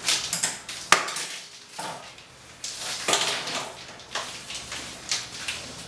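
Gift ribbon rustling as it is unrolled and handled, with a few light clicks and knocks, the sharpest about a second in.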